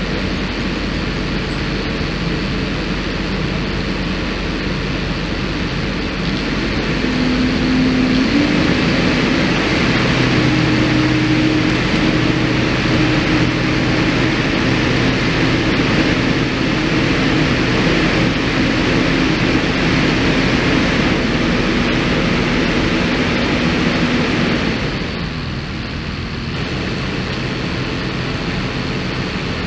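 Engine of a machine lifting a log cabin, running steadily, then revving up and working harder from about seven seconds in and dropping back about twenty-five seconds in.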